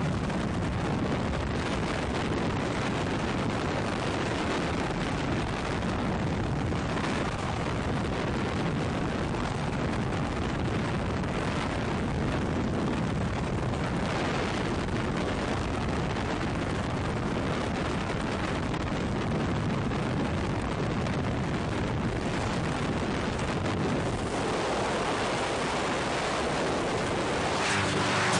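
Steady roar of rushing air buffeting the microphone, heavy in the lows, with no engine tone or voices in it.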